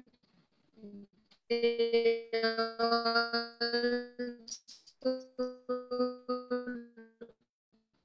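A voice on a video call breaking up into a choppy, robotic buzz of held tones that stutter on and off, starting about one and a half seconds in and cutting out near the end. This is the sound of a bad connection garbling the caller's audio.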